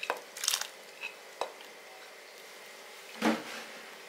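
Kitchenware being handled: a few light clinks and a short scrape as a bowl is lifted away from the pan, then a louder clunk about three seconds in as something is set down.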